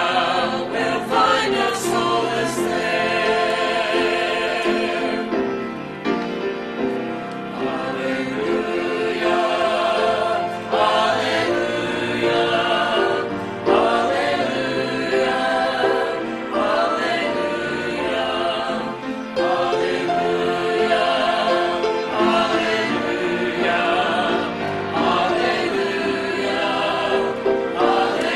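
Mixed church choir of men and women singing a hymn together, many voices holding long notes.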